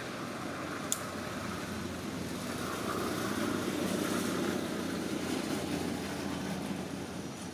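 Steady low background rumble, like distant motor traffic, swelling a little in the middle, with one sharp click about a second in.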